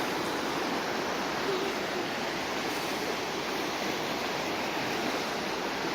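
Steady rush of a flooded mountain creek running high and fast after a storm.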